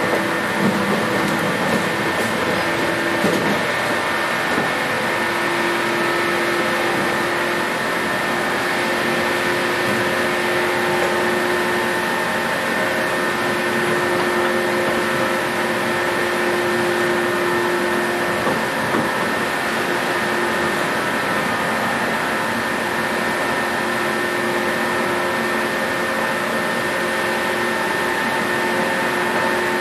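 JR 117-series electric train heard from inside the carriage: steady traction-motor whine over rolling noise. Several tones hold level without rising or falling, so the train is running at a steady speed.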